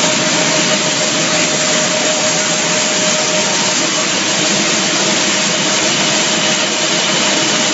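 Pet food production-line machinery running: a loud, steady roar with a constant humming tone through it.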